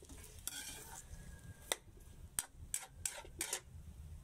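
Metal spatula scraping and knocking against a wok while stir-frying chopped Chinese cabbage: a scrape about half a second in, then several sharp clicks, coming closer together near the end.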